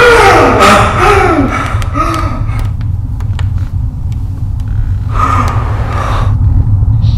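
A man gasping loudly as he wakes with a start, with a few falling, voiced gasps in the first two seconds and another hard breath about five seconds in. A steady low rumble runs underneath.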